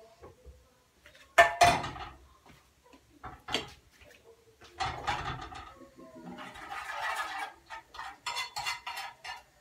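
Kitchen utensils and dishes clattering: a loud knock about a second and a half in, then runs of quick clinks and scrapes.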